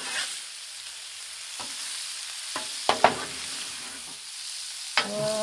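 Chopped onion, pepper, celery, garlic and smoked sausage sizzling in ghee on a Blackstone flat-top griddle, stirred with a metal spatula that scrapes and clicks against the steel plate several times, loudest about three seconds in.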